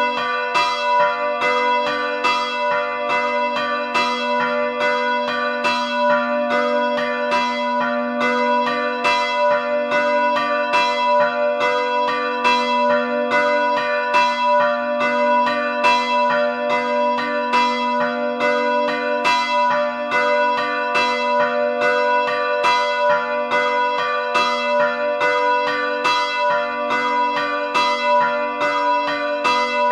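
Two bronze church bells, a 79 cm Feniks Žalec bell of 2004 tuned to B and a 61 cm Luigi Magni bell of 1929 tuned to D, swing and ring together. Their strokes interleave in a steady stream of loud, overlapping peals.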